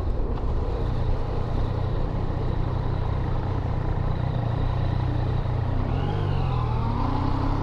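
Yamaha MT-09's three-cylinder engine running while the bike is ridden, under steady wind noise. About six seconds in, the engine note rises as the bike accelerates.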